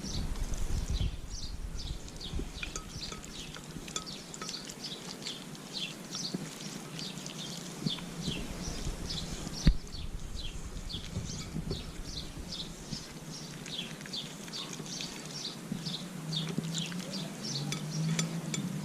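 Small birds chirping throughout, many short high notes sliding downward in quick irregular series. There is a single sharp knock about ten seconds in.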